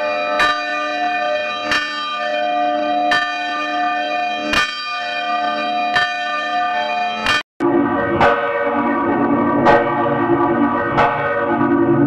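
A single swinging church bell tolling, its clapper striking about every second and a half with each stroke ringing on into the next. After a brief drop-out about seven and a half seconds in, the tolling resumes with a lower, fuller tone.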